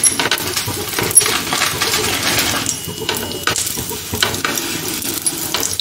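Butter sizzling on a hot nonstick tawa as burger buns toast in it over a low flame, with scattered clicks and clinks against the pan.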